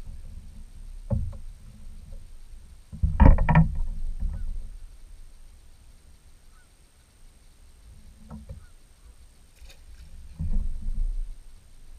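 Knocks and thumps on a plastic kayak hull as a small perch is brought aboard and handled, with the loudest clattering bout about three seconds in and smaller knocks about a second in and near the end.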